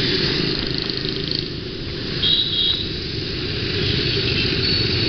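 Motorbike riding in dense city traffic: engine and street noise as a steady low rumble, with a brief high-pitched tone a little over two seconds in.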